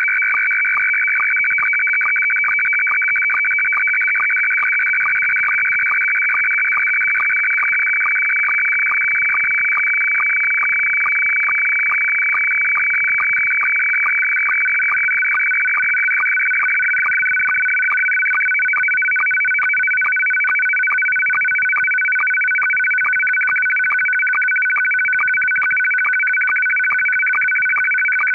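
Slow-scan television (SSTV) signal in Scottie S1 mode: a steady, rhythmic warble of audio tones that holds mostly to two pitches, for the black and white of the image being sent, broken by short sync pulses at each scan line.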